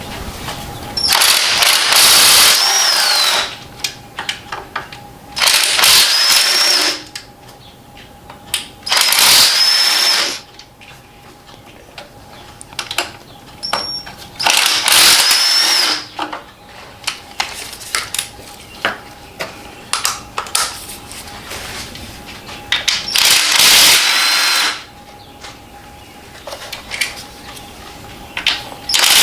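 Cordless power tool spinning out the intake manifold bolts in short runs, about six bursts of one to two seconds each, each with a whine that rises as it starts and drops as it stops. Light clicks and clinks of bolts and tool handling come between the bursts.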